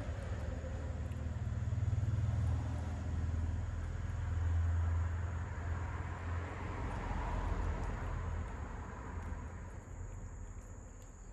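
Low rumbling noise, fading away toward the end.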